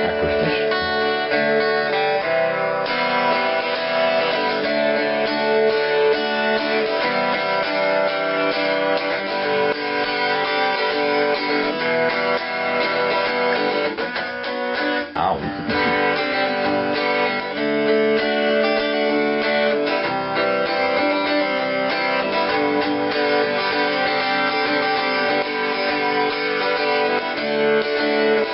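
Electric guitar, a home-built Yamaha SG2000-style solid body, played in a demo of its tone: strummed chords and ringing notes, with a brief break about halfway.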